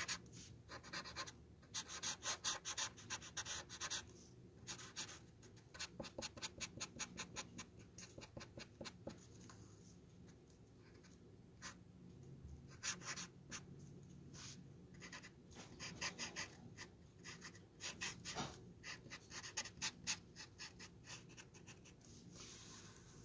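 Felt-tip marker scratching across a wooden spoon in quick short strokes, in bursts with a pause of a few seconds near the middle.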